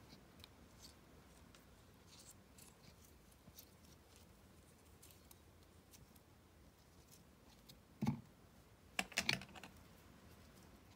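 Faint handling noise of rose petals, a plastic mesh bag and a plastic tub: scattered soft clicks and rustles, with a short cluster of louder sharp clicks about eight to nine and a half seconds in.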